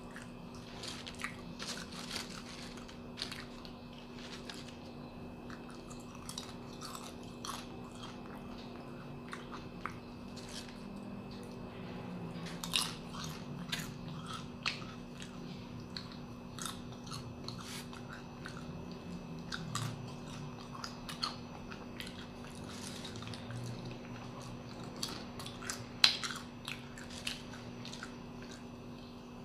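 Crisp, crunchy chewing of paprika-flavoured fried banana chips, with irregular sharp crunches throughout and one louder bite near the end. A low steady hum runs underneath.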